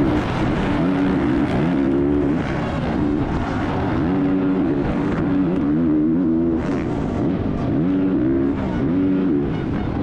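Onboard sound of a Honda 450cc four-stroke motocross bike at race pace, recorded close up from a camera on the bike. The engine revs up and drops back again and again as it shifts gears and goes over jumps.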